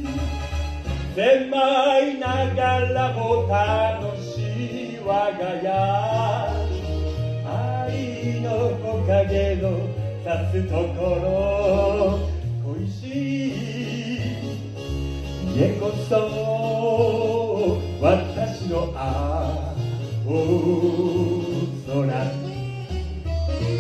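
Music: a song with a singing voice over a steady, stepping bass line.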